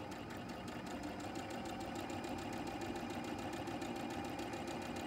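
Electric sewing machine running steadily, stitching fabric onto foundation paper along a seam line: an even, rapid rhythm of stitches over a steady motor hum.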